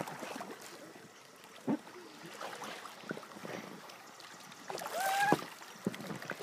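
Pool water sloshing and lapping, with small splashes as children swim and push around an inflatable float. A brief high-pitched call stands out about five seconds in, and there is a single knock early on.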